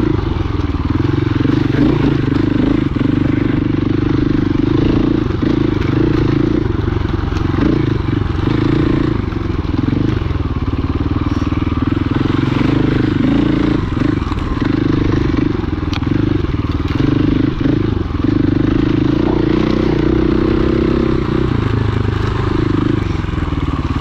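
Dirt bike engine running steadily while the bike is ridden along a rough dirt trail, its note dipping briefly a few times.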